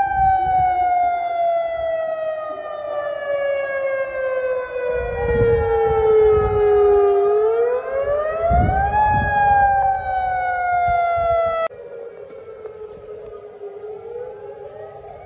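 Civil defence siren wailing as a tsunami warning: each wail climbs quickly, then falls slowly over about seven seconds, with a second wail overlapping the first. About twelve seconds in the louder siren cuts off suddenly and a fainter one carries on.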